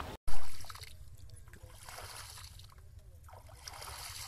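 Water sloshing and trickling around a small poled boat on a lake, with a short louder splash just after the start, over a steady low rumble.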